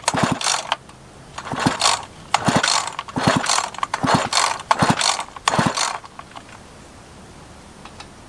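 Husqvarna 350 chainsaw's recoil starter pulled about seven times in quick succession, the cord rasping and the two-stroke engine spinning freely with its spark plug out. The pulls stop about six seconds in. It is a spark test with the stop switch in the on position.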